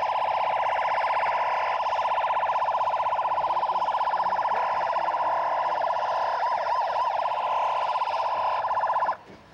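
Emergency-vehicle siren sounding a loud, fast-pulsing tone that holds a steady pitch, then cutting off abruptly near the end.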